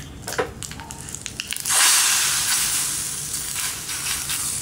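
Hot oil tempering of mustard seeds, cumin and curry leaves poured into a pot of rasam. It gives a few sharp crackles, then a sudden loud sizzle as the oil hits the liquid, about two seconds in, which slowly fades.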